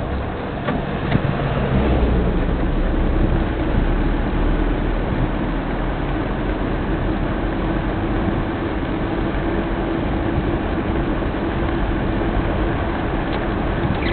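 Car driving along a road: steady engine and road noise with a deep rumble, joined by a steady hum about two seconds in.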